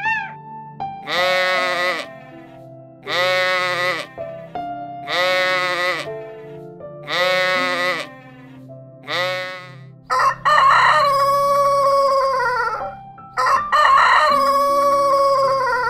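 Five bleats, one about every two seconds, followed by a rooster crowing twice in long, drawn-out crows, over steady background music.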